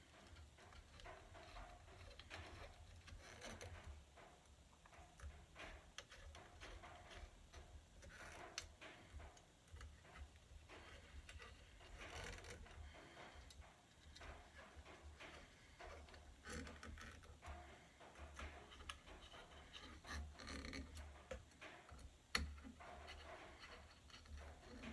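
Faint, irregular clicks and taps of small parts and hand tools being handled during assembly of a 3D printer frame, with one sharper click near the end over a low hum.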